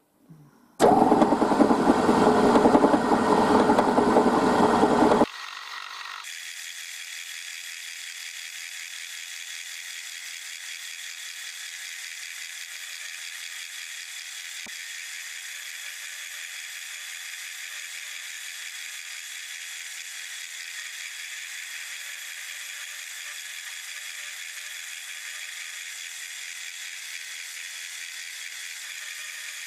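Milling machine spindle running while a 6 mm high-speed-steel end mill cuts a slot in a thin-walled square tube of 1.6 mm wall. A loud, dense noise lasts the first few seconds and stops abruptly, and the cutting then goes on as a steady, even, high-pitched hiss.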